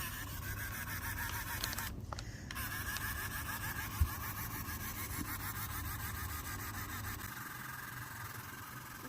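3D printing pen's filament feed motor running with a steady whine while extruding plastic, stopping briefly about two seconds in and then resuming. A single light knock about four seconds in.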